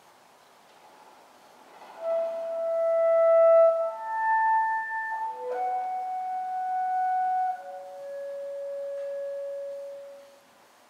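B-flat clarinet playing a slow, unaccompanied line of long held notes, entering about two seconds in; the first note swells, and the last fades away near the end.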